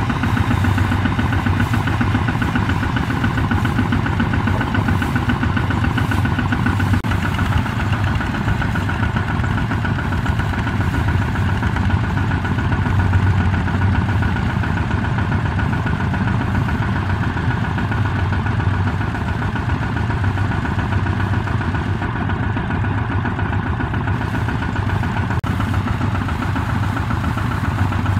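A two-wheel walking tractor's single-cylinder diesel engine running steadily.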